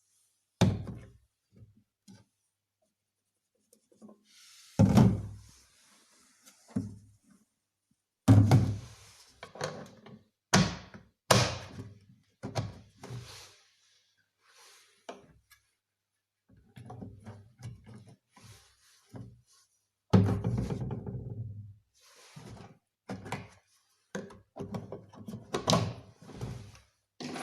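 Hard plastic parts being handled: a series of irregular thunks and knocks, some followed by short scraping or rattling, with quiet gaps between them.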